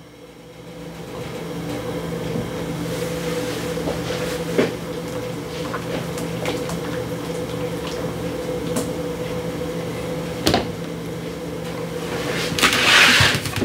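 A steady mechanical hum from a kitchen appliance, with a few light knocks of a spatula against a steel pan of gravy and a brief scraping clatter near the end.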